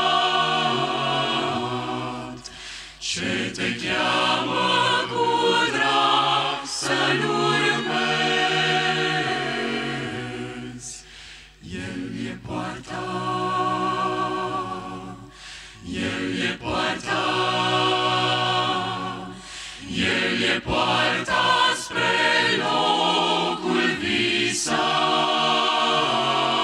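A vocal group singing a Romanian hymn a cappella in several-part harmony, in long phrases with short breaks between them.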